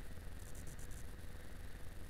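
Yamaha XJ6 Diversion motorcycle riding along, heard as a steady, muffled low rumble of engine, wind and road noise through the mounted camera.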